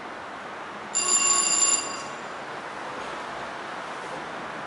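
A high-pitched ringing tone sounds for about a second, starting about a second in, over steady background noise.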